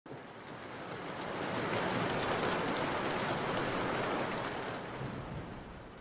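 Steady rushing, hissing noise with faint light ticks in it, swelling up over the first couple of seconds and easing off near the end.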